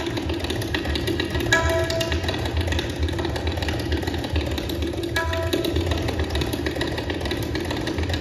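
Tabla playing a rela, a fast, unbroken rolling pattern in imitation of a steam train's chugging. A short ringing pitched note cuts through about every three and a half seconds.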